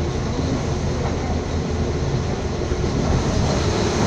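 Steady rumble and rush of a moving train heard from on board, its wheels running on the rails.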